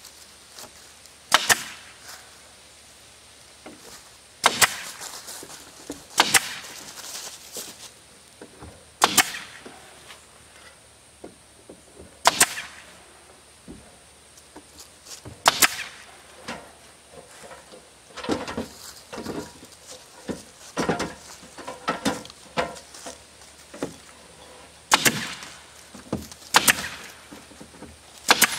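Pneumatic nail gun firing nails through exterior wood siding sheeting into the 2x4 framing. About eight sharp shots come a few seconds apart, with lighter knocks and handling noise between them, most of it in the middle stretch.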